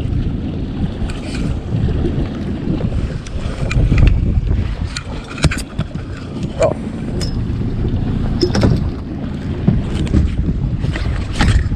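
Mercury outboard motor running steadily at trolling speed, with wind buffeting the microphone. A few sharp knocks and clicks come through it.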